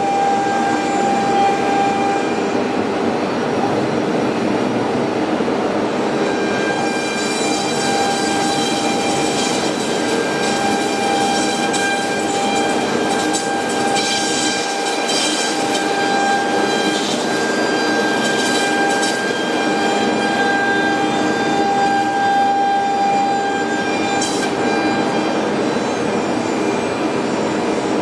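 Automatic CNC nesting router running, a steady high whine over loud, even machine noise.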